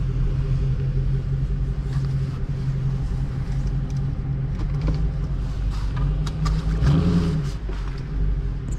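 Dodge R/T 5.7-litre HEMI V8 idling steadily, heard from inside the car's cabin. About seven seconds in, the engine speed rises briefly and louder, then drops back to idle.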